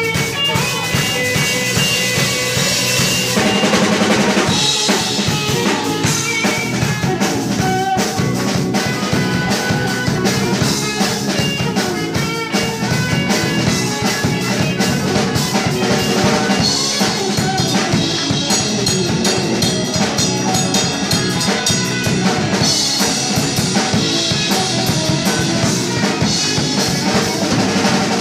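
Live band playing amplified music: a drum kit keeping a steady beat under electric bass and electric guitar.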